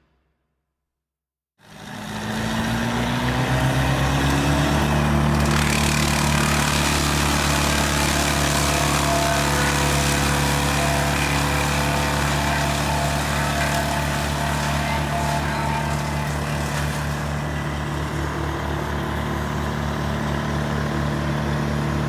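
A large engine starts up about a second and a half in, rises in pitch over the next few seconds as it revs up, then keeps running at a steady speed.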